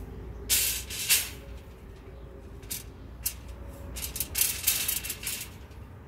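Steel rebar rings being worked by hand along the bars of a pile reinforcement cage: several short bursts of metallic scraping and rattling, the loudest about half a second and a second in, then a cluster of them about four to five seconds in.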